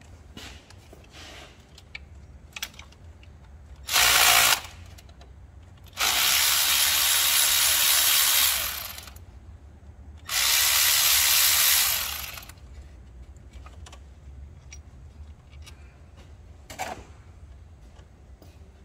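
A power tool undoing the water pump's bolts, running in three loud bursts: a short one about four seconds in, then two longer runs of two to three seconds each. Faint clicks and knocks of tool and parts come between them.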